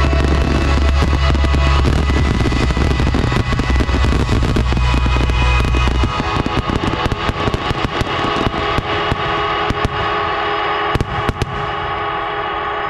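A fireworks finale: dense crackling and bangs over loud music. The music's bass drops out about six seconds in, leaving a held chord under the crackle, and a few sharper bangs stand out near the end.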